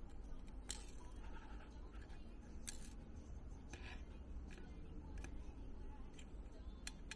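Light, irregular metal clicks and ticks from a fine pointed steel tool working a small part over a stainless steel tray, about seven in all, over a low steady hum.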